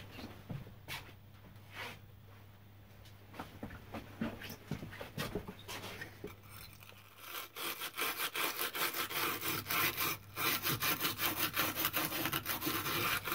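A wire brush scrubbing around the rim of an LED spotlight housing, cleaning corrosion off the seal seat so new sealant will grip. Quick, rhythmic scraping strokes start about seven seconds in, after a few light knocks of the housing being handled.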